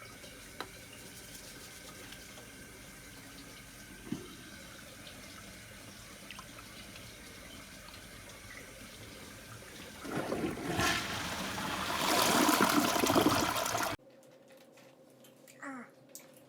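A toilet flushing: a loud rush of water starts about ten seconds in and lasts about four seconds before cutting off abruptly, after a long stretch of faint steady hiss.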